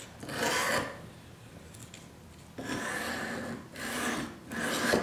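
Wet 220-grit sharpening stone on an Edge Pro guided sharpener, stroked across a steel knife edge in four passes, one early and three in quick succession near the end. These are trial strokes to find the bevel angle that matches the knife's existing edge.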